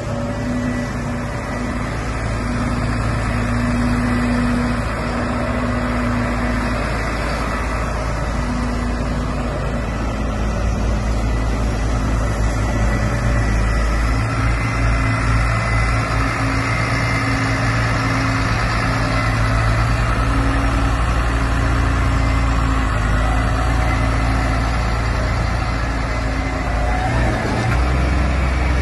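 A New Holland TS6.125 tractor's diesel engine running steadily as the tractor drives slowly, with a steady low hum. The hum grows louder near the end as the tractor comes close.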